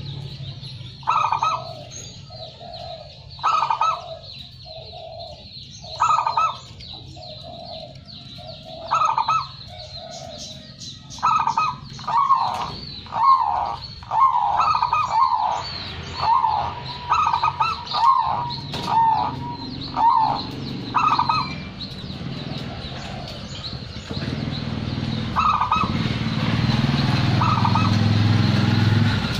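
Local-strain zebra dove (perkutut) cooing. For the first several seconds it gives spaced phrases, a higher note followed by lower soft coos, every couple of seconds; midway it breaks into a quicker run of coos. A low rumble grows louder over the last few seconds, with a few more coos over it.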